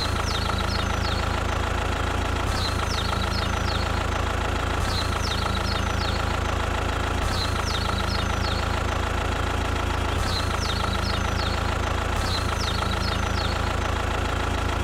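Engine idling steadily with a deep low rumble and an even, unchanging pitch, while short high chirps recur about every two and a half seconds.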